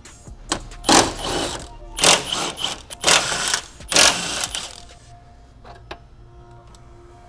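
Cordless ratchet with a 14 mm socket whirring in four short bursts about a second apart as it spins strut brace nuts off, then only a few light clicks.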